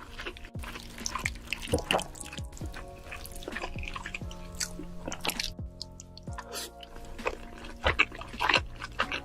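Wet eating sounds: chewing, smacking and slurping, with short drippy clicks, over steady background music.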